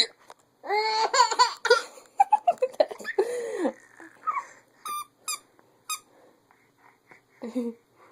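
A young child laughing in high-pitched peals and squeals at a woman's hiccups, with a sharp hiccup at the start and another near the end.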